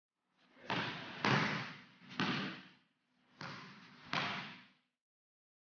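Basketball striking the rim and bouncing on a hardwood court: about five sharp thuds over four seconds, three then a short gap then two, each ringing on in the gym's echo.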